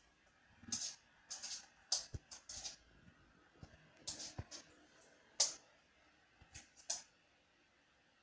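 A whippet's claws clicking and tapping irregularly on a hard floor as it steps and paws at a bug, stopping about seven seconds in.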